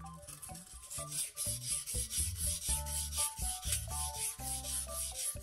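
Steel kitchen knife blade, steadied at a fixed angle by binder clips on its spine, stroked back and forth on a wet whetstone: a quick, even, rhythmic grinding hiss, several strokes a second.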